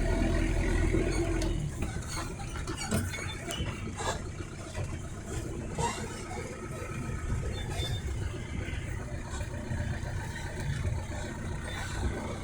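An engine running, with a steady hum that drops away about a second and a half in, leaving a lower uneven rumble and a few scattered knocks.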